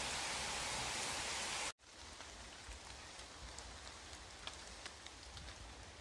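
Rain falling as a dense, steady hiss that cuts off sharply a little under two seconds in. Quieter rain follows, with separate drops ticking now and then.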